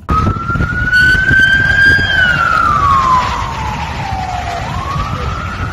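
Emergency vehicle siren wailing: a slow rise, a long fall, then rising again near the end, over the low rumble of road traffic.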